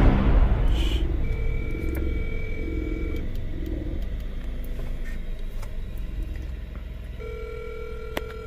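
A phone ringback tone as an outgoing call rings out: two steady rings about two seconds long, roughly four seconds apart, over the low rumble of a car. A rush of noise fades out in the first second.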